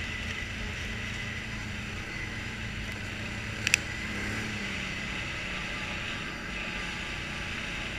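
ATV engine running steadily while riding along at speed, with a constant rumble of engine, tyres and wind. A single brief sharp tick comes about three and a half seconds in.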